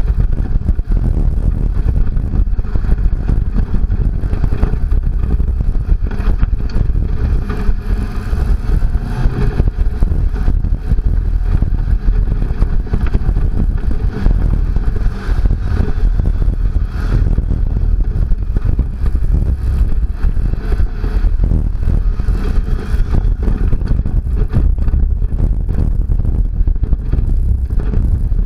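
Second-generation Toyota Tacoma prerunner driving at speed on a rough dirt track: loud, steady engine and tyre noise with constant rattling and knocking from the body and suspension over the ruts.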